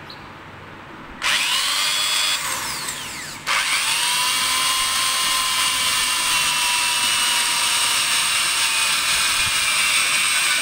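Corded electric drill running with its bit in an aluminium LED light-box profile strip: a short run starting about a second in, a brief stop, then a steady whine that spins up and runs on for about seven seconds.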